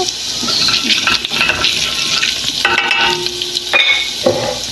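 Kitchen handling sounds: a utensil stirring and clinking against a pan or bowl over a steady hiss.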